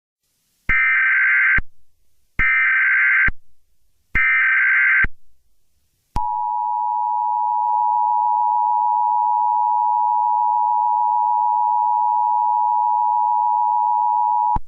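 Emergency Alert System header: three short bursts of warbling SAME data tones, each under a second, about a second apart. Then the steady two-tone EAS attention signal (853 and 960 Hz) holds for about eight seconds and stops abruptly.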